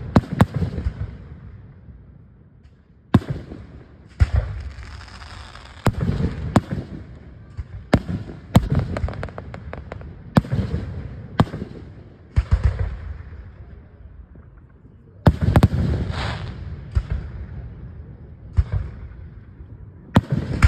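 Aerial firework shells bursting in a steady barrage, a sharp bang every one to three seconds, each trailing off in a rumbling echo.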